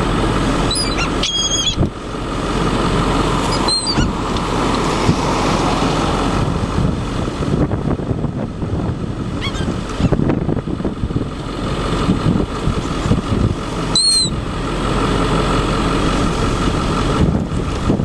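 Steady, loud rumbling of wind and motor noise. A few short, high calls from the gulls flying overhead cut through it, the clearest about a second and a half in and again near the middle.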